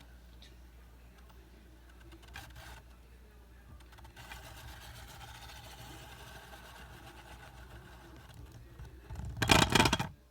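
A 3D-printed Beyblade top spinning in a plastic Beyblade stadium with a faint, rhythmic, grinding whir, then a loud clatter near the end.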